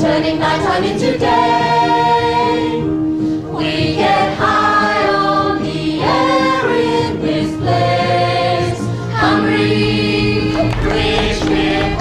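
Stage cast singing a choral number together in long held notes, with a steady low accompaniment underneath.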